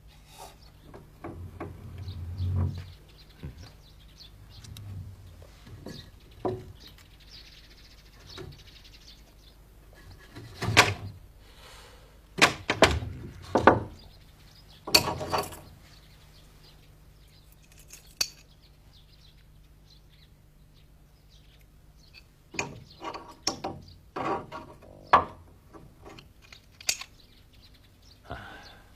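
Scattered metallic clicks, clinks and knocks of a lock hasp and latch on a brass-studded cabinet door being handled and rattled, a cluster of sharp knocks in the middle and another run near the end, over a steady low hum.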